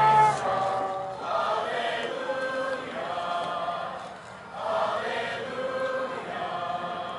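A large group singing slow, sustained choral chords, in long phrases that swell and fade.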